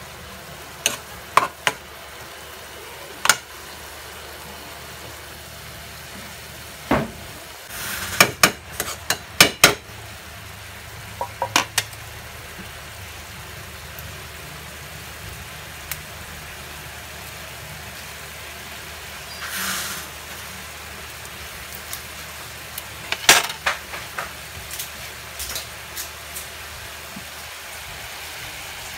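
Onion, garlic and crab paste sizzling in a wok over a gas burner, with a spatula clinking and scraping against the wok now and then, most often in two runs of quick knocks, one about a third of the way in and one toward the end. A little past the middle comes a brief, louder hiss.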